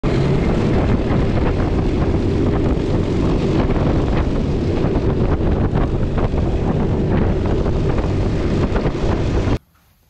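Loud wind buffeting the microphone of a moving electric snowmobile: a deep, steady rush with no engine note. It cuts off abruptly near the end.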